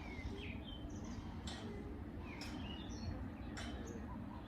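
Birds chirping, short gliding calls every second or so, over a steady low background rumble, with three sharp clicks about a second apart.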